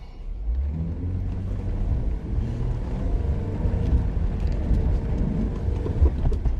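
Jeep Gladiator engine pulling hard under load as the truck charges up a sandy hill for momentum: a steady low rumble that swells about half a second in.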